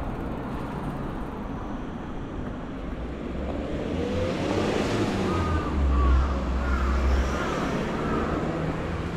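City street traffic with a vehicle passing close. The low rumble swells to its loudest a little past halfway, then fades.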